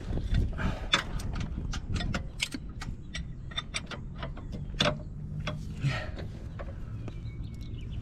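Hand tools working on a car's underside during an oil change: a run of irregular sharp metallic clicks and taps, ratchet-like, several each second.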